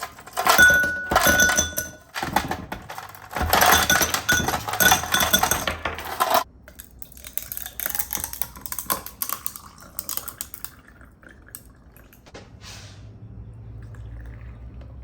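Clattering and clinking of hard items being handled, dense and loud for about the first six seconds, then lighter scattered clicks that die away, with a faint low hum near the end.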